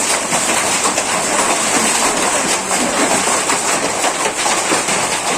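Hail and heavy rain pelting down: a dense, steady clatter of many small impacts.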